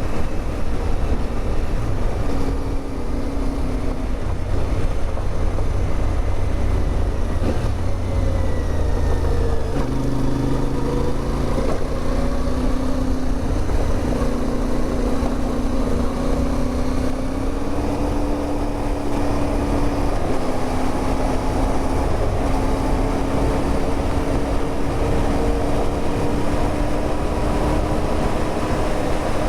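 CFMOTO 450MT motorcycle's parallel-twin engine running under way, its pitch stepping down and up with throttle and gear changes and rising slowly near the end, over a heavy rumble of wind on the microphone that eases after about ten seconds.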